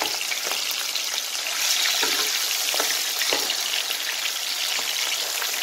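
Spice-marinated fish pieces sizzling and crackling steadily in hot oil in a frying pan, with a few clicks of a slotted metal spatula against the pan as the pieces are turned.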